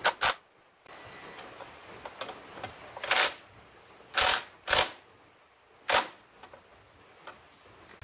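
Cordless power driver with a socket spinning a nut in short trigger bursts, about six in all: two quick ones at the start, then four more spread out.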